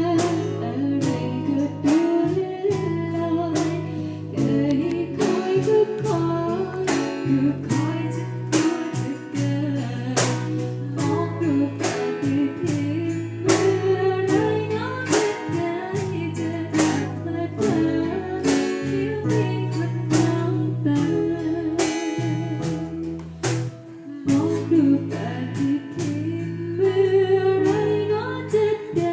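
Luk thung song: a woman singing the melody over a steady accompaniment of guitar, held bass notes and regular drum beats.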